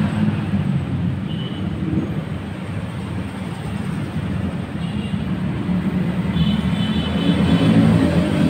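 A steady low mechanical drone, like an engine running, over a constant hiss, with a few faint short high-pitched tones now and then.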